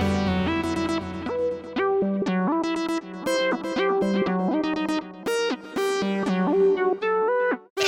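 Music: an instrumental keyboard passage of chords and shifting notes over a bass line, without drums, breaking off briefly near the end.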